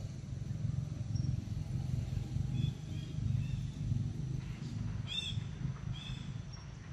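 Birds calling: a few soft chirps about two and a half seconds in, then two louder, sharper calls about five and six seconds in, with a thin high pip repeating now and then. Under them runs a low, uneven rumble.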